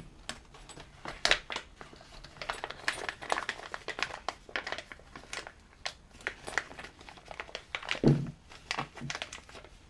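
Plastic packaging crinkling, with irregular small clicks as parts are handled, and one louder knock about eight seconds in.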